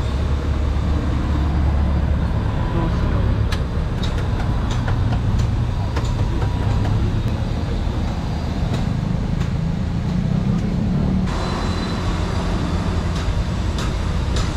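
Road traffic with a vehicle engine running close by: a steady low rumble, with a few light clicks and clinks over it.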